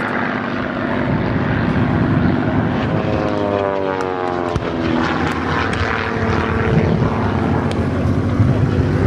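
Single-engine piston propeller fighter flying past overhead, its engine running steadily; its note drops in pitch about three to five seconds in as it passes.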